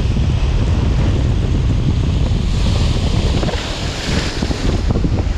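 Strong wind buffeting the microphone over surf breaking and washing across rocks; the hiss of the white water swells about halfway through.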